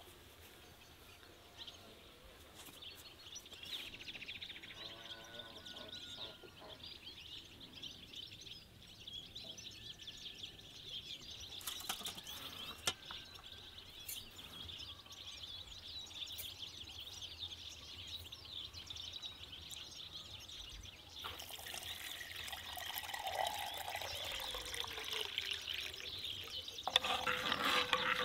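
Birds chirping in the background. From a little after the middle, a metal spoon stirs water in a metal cup, with swirling, sloshing sounds that grow louder toward the end.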